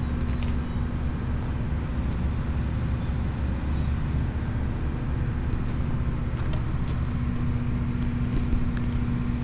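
Large diesel engine running steadily at a constant speed, with a low hum and a steady tone, and a scatter of faint sharp clicks.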